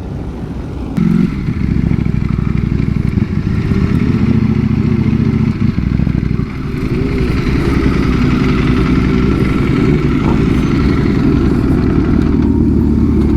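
Motorcycle engine pulling away and running at speed, its pitch rising and falling as it revs, with a brief dip about six seconds in.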